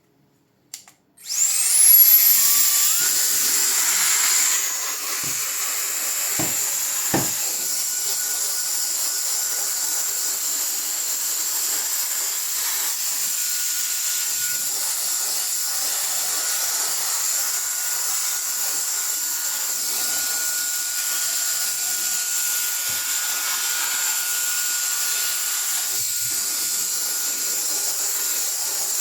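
A click, then a small high-speed electric motor or fan spins up with a quickly rising whine and runs on steadily with a high, even whine over a hissing rush of air.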